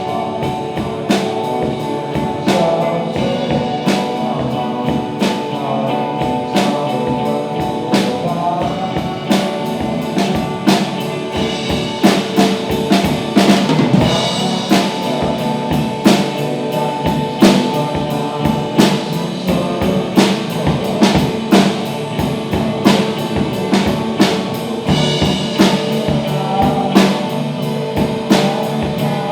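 Rock band music: a drum kit keeping a steady beat with snare and bass drum under sustained guitar and bass, with the drum hits growing more prominent about halfway through.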